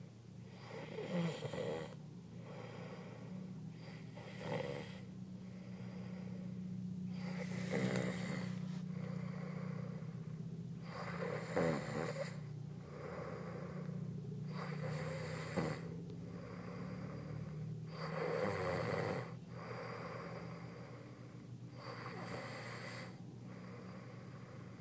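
A man snoring in his sleep, one snore every three to four seconds, about seven in all, over a steady low hum.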